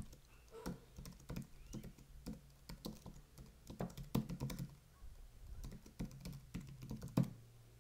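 Computer keyboard typing: a quick, irregular run of key clicks that stops shortly before the end.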